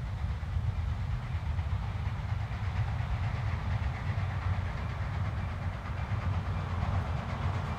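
Reading 2102, a 4-8-4 steam locomotive, heard out of sight: a steady low rumble with a fainter hiss over it.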